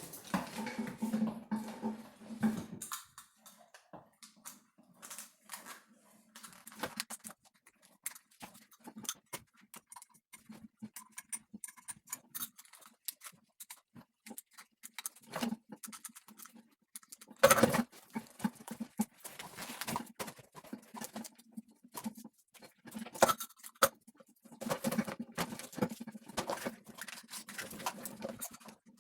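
Wiring harness being handled: irregular rustling and crackling clicks of wires and plastic loom being pulled apart, with one loud knock about seventeen seconds in.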